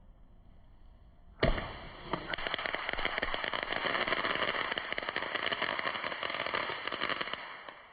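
A single sharp hit about a second and a half in, then a dense, rapid crackle of many Pop-Its snap pops bursting at once. It keeps up for about six seconds and fades out near the end.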